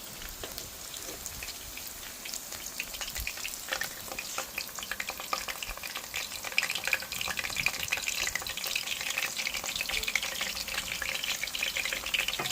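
Egg rolls (lumpia) deep-frying in hot oil in an electric pan: a dense, steady crackling sizzle that grows somewhat louder about halfway through.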